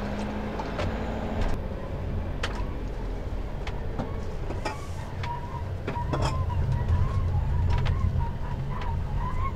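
Motorhome engine running and road noise as it drives slowly, heard from inside the cab, with a few light clicks and rattles. The drone gets a little louder past the middle.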